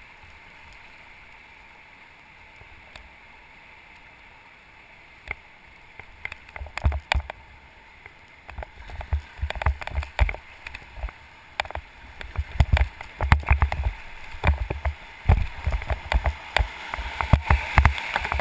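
Whitewater river rushing steadily past a raft, then from about six seconds in a run of sharp splashes and thumps of water that come thicker toward the end.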